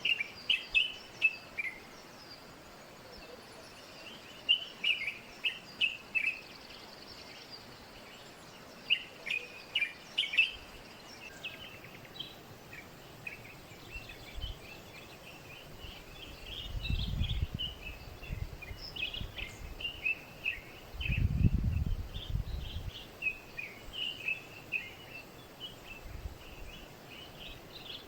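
Small birds chirping, many short quick notes in clusters throughout, over a steady outdoor background hiss. Two low rumbles rise and fade, one about halfway through and a louder one a few seconds later.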